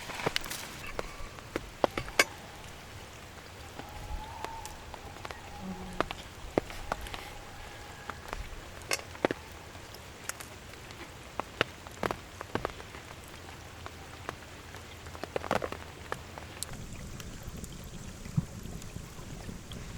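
Steady rain falling, with scattered heavy drops striking a surface close to the microphone as sharp, irregular taps.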